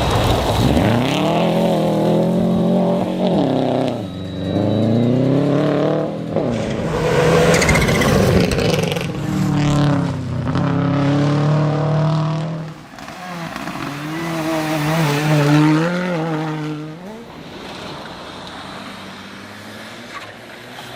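Rally car engine revving hard, its pitch climbing through each gear and dropping at each shift or lift, again and again, as the car drives a stage. It is quieter for the last few seconds.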